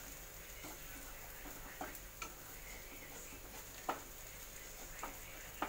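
Slotted spatula clicking lightly against a non-stick frying pan a few times, spaced out, as the edges of a gram-flour pancake are pushed into a round, over the faint steady hiss of the batter frying.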